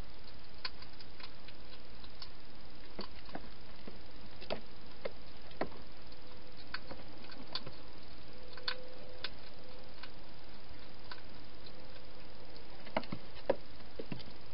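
A wild hedgehog feeding from bowls inside a plastic feeding box: irregular small clicks and crunches, sparse at first and closer together near the end, over a steady hiss.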